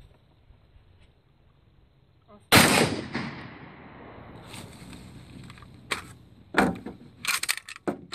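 A single shot from a Saiga-12 12-gauge semi-automatic shotgun firing a slug, about two and a half seconds in, its report echoing away over about two seconds. A few shorter, sharp knocks and clatter follow near the end.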